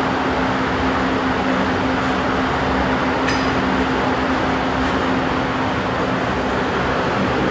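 Steady rushing noise with a low, even hum, from a running fan. A faint click comes about three seconds in.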